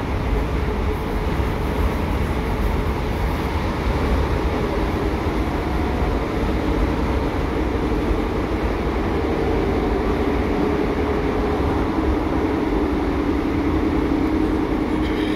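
Cabin noise inside a British Rail Class 150 Sprinter diesel multiple unit on the move: steady low rumble of wheels on rail and its underfloor Cummins turbo-diesel engine driving through a Voith hydraulic transmission. A humming engine note grows stronger in the second half.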